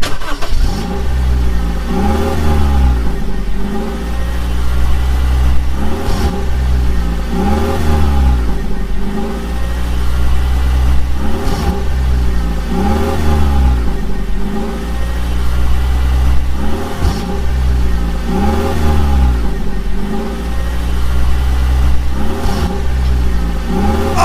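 Vehicle engine sound revving up and back down in a regular repeating cycle about every two and a half seconds, over a steady low rumble.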